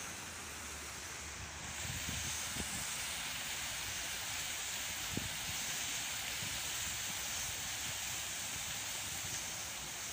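Outdoor ambience: a steady hiss with wind buffeting the microphone in low gusts. It turns slightly louder and brighter about two seconds in. A couple of faint knocks.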